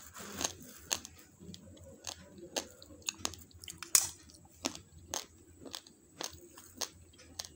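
Raw basmati rice grains being chewed, sharp dry crunches about twice a second, the loudest about halfway through.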